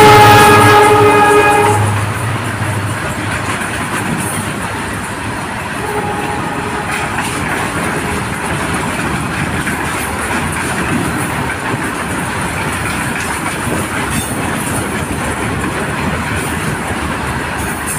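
The horn of an Indian Railways WDG4G diesel locomotive sounds as the engine passes, its pitch dropping, and cuts off about two seconds in. After that the freight train's covered wagons roll steadily past, their wheels clacking over the rail joints.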